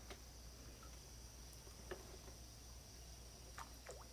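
Near silence with faint, steady high insect chirring in the background and a couple of faint ticks.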